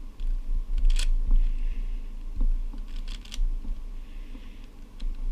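A YJ Guanlong speed cube being turned by hand: scattered quick plastic clicks and clacks as its layers turn, over a steady low hum.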